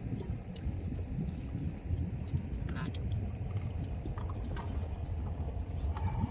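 Steady low rumble of a small fishing boat at sea, its engine running with wind on the microphone, with a few light clicks and knocks over it.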